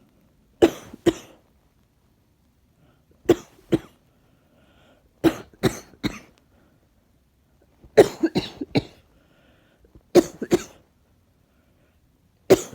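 A woman coughing in short bouts of two to four harsh coughs, a fresh bout every couple of seconds, with a run of four coughs about eight seconds in. It is a chesty cough from something she feels stuck in her chest.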